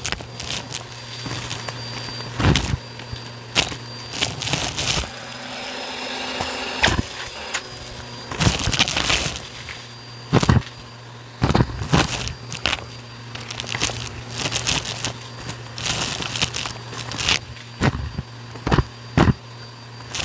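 Bissell vacuum running with a steady low hum and a faint high whine while small bits of dusty debris crackle and click irregularly as they are sucked up, with several louder sharp cracks.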